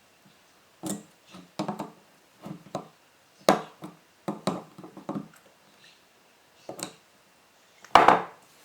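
Irregular clicks and knocks of tools and starter-solenoid parts being handled and set down on a workbench, the loudest knock near the end.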